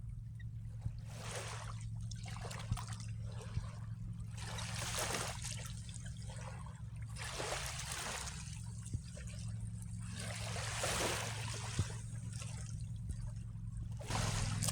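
Small waves of seawater lapping and washing, surging about every three seconds, over a steady low hum.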